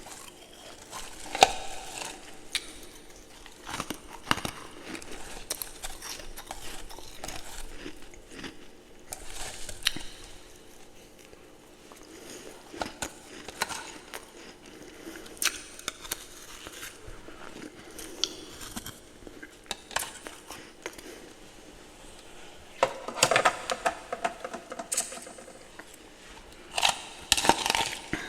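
Ice and freezer frost being bitten and chewed close to the microphone: scattered crisp crunches and crackles, with bursts of heavier crunching twice near the end.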